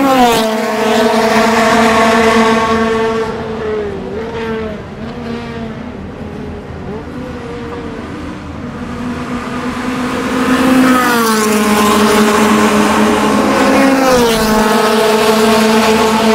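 Honda Civic Type R (FD2R) four-cylinder at high revs passing close by, its note dropping sharply in pitch as it goes past, then fading as it pulls away and shifts up. Later a second car's engine grows loud as it comes up the straight, its pitch stepping down twice at upshifts.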